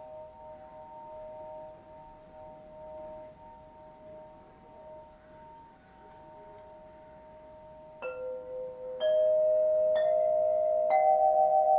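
Singing bowls in a sound bath: a lingering tone fades slowly, then about eight seconds in four bowls are struck about a second apart, each ringing on at a different pitch and building into a louder layered chord.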